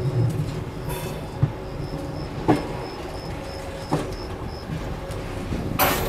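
Train rolling slowly through a wheel change facility: a steady low rumble with single metallic clacks of the wheels on the rails a few times, a faint high chirp repeating about three times a second, and a louder sharp metallic noise near the end.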